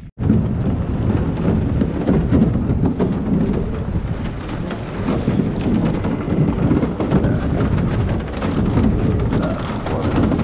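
Boat hull breaking and grinding through thin floating ice, a loud, dense, continuous crackle.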